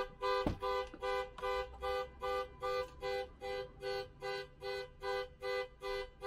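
Range Rover's car alarm going off: the two-note horn honks in rapid, evenly spaced pulses, about two and a half a second. There is a single thump about half a second in.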